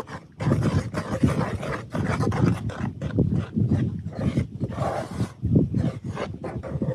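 Wind buffeting the microphone in uneven gusts, a low rumble that covers everything else.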